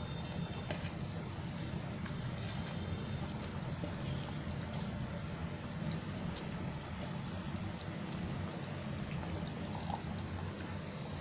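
Thin curry gravy boiling hard in a pan with soya keema koftas in it: steady bubbling and simmering, with a few small pops.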